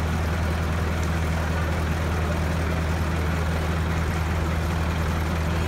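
Engine of a Chance Rides C.P. Huntington miniature park train locomotive idling with a steady low hum.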